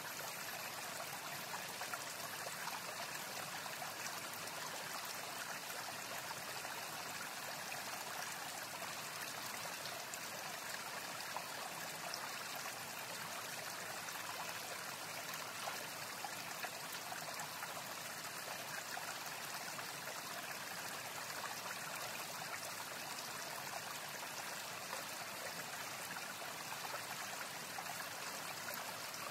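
A forest stream running steadily, a constant rushing of flowing water.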